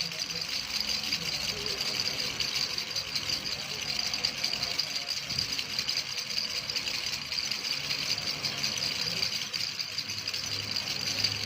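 Baby rattle toy shaken continuously, a fast, even stream of small beads rattling inside.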